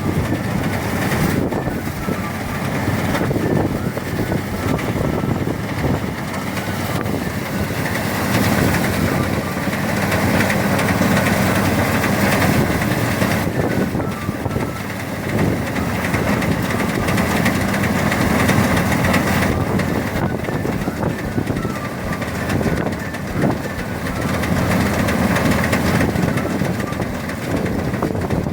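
Motorised rice threshing machine running steadily, its engine and threshing drum giving a continuous mechanical drone.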